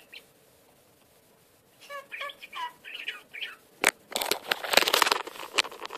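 Budgerigar chattering in short, chirpy, warbling calls, followed near the end by a louder stretch of scratchy rustling and clicking.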